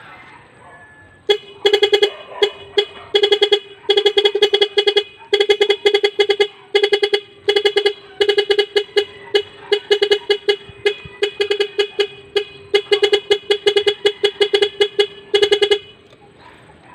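Nhay Pro electronic bicycle horn sounding one of its preset tones: a single steady pitch beeping rapidly in quick groups of pulses. It starts about a second in and cuts off shortly before the end.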